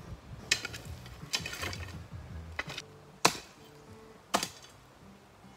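Several sharp, separate knocks and clicks of stone and tools striking rock, the loudest about halfway through, over faint background music.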